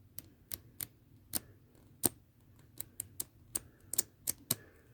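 Paper pages of a flip book snapping off the thumb as it is flipped through, about a dozen sharp irregular clicks.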